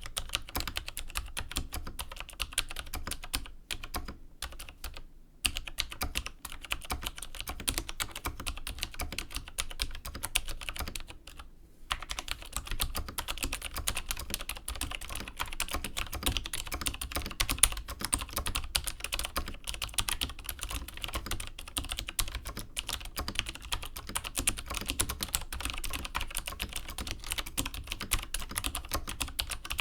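Continuous typing on a vintage Chicony KB5581 keyboard with Cherry MX Dark Blue clicky tactile switches: a rapid run of keystroke clicks with a deep, slightly crunchy sound. Brief pauses fall about four seconds in and again near the middle.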